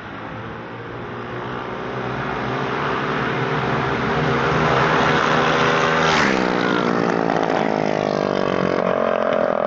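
Two gas-powered minibikes racing flat out, growing louder as they approach, then passing about six seconds in with a sudden drop in pitch, and running on as they ride away.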